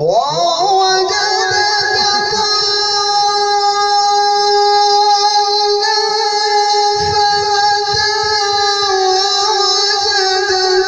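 A man's voice in melodic Quran recitation (tilawat) sweeps sharply up at the start, then holds one long, high, wavering note without a break.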